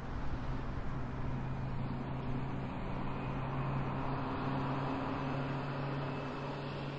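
Steady mechanical drone: a low, even hum under a broad rushing hiss, with no breaks or changes in rhythm.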